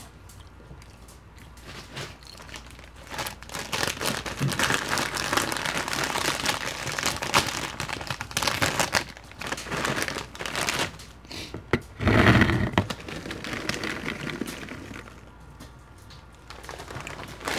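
Plastic snack bag of popcorn crinkling as it is handled and cut open with scissors, with a louder burst of rustling about twelve seconds in.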